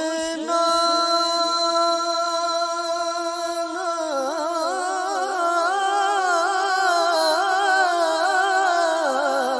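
A man singing a naat solo into a microphone. He holds one long steady note for about three and a half seconds, then moves into a wavering, ornamented melodic line.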